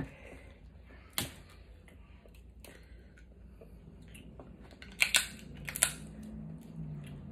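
Snow crab leg shells being snapped and cracked apart by hand: one sharp crack about a second in, then a cluster of louder cracks around five seconds in, with quieter shell-picking crackle between.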